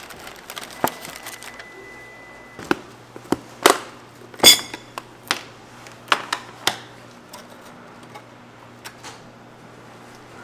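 Packing handling at a shop counter: cardboard box and wrapping paper handled with a string of sharp knocks and clicks, about ten of them scattered through the first seven seconds, the loudest a short ringing clink about four and a half seconds in.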